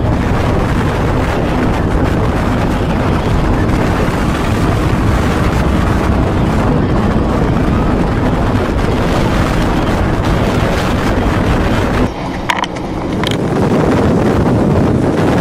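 Strong wind buffeting the microphone: a dense, steady roar, heaviest in the low end. It drops off briefly about twelve seconds in, then comes back as loud as before.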